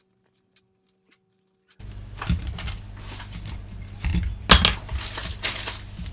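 Near silence, then after about two seconds a low steady hum cuts in. Over the hum come irregular small clicks and knocks of a PS5 controller's plastic parts being handled and fitted together during reassembly, the sharpest about four and a half seconds in.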